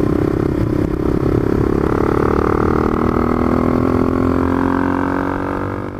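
Honda CRF250L's single-cylinder four-stroke engine running as the bike rides along, its note slowly dropping, with wind rumbling on the microphone. The sound begins to fade out at the very end.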